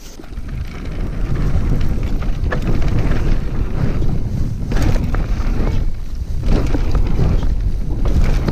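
Wind buffeting the microphone while riding a mountain bike on a trail, a loud low rumble, with a few sharp knocks and rattles from the bike over rough ground.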